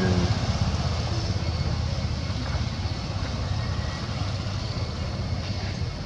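Steady low rumble with a hiss over it, slowly fading, like an engine running in the background.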